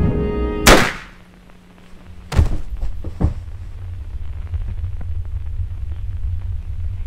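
A single handgun shot cuts off string-and-piano music, followed by two thuds about two and three seconds later, then a steady low rumble.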